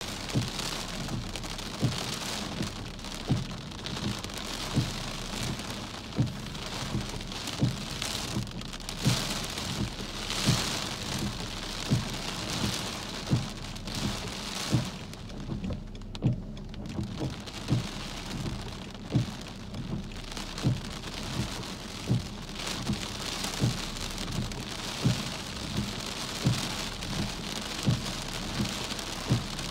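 Steady heavy rain on a car's glass and body, heard from inside, easing for a moment about halfway through. A soft low thump repeats about every second and a half.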